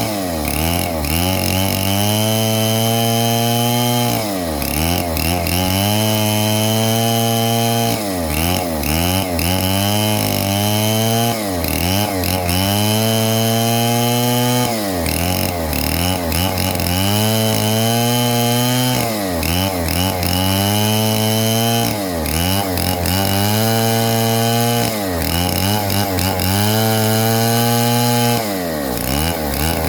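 Stihl 070 two-stroke chainsaw running at high revs, its engine speed dipping briefly and climbing back about every three to four seconds.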